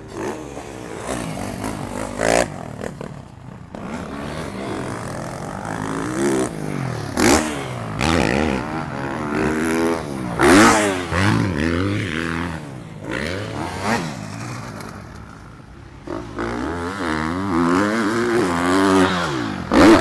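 Motocross bike engines revving up and easing off again and again, their pitch sliding up and down as the riders take the ruts and jumps.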